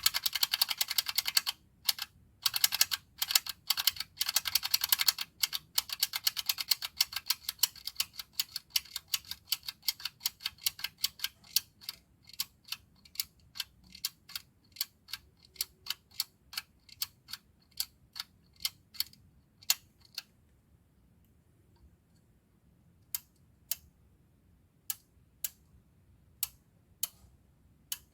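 Handheld manual tally counter clicking as its button is pressed again and again: rapid clicks at first, slowing to about two a second, then a pause of a few seconds before slower, evenly spaced single clicks resume.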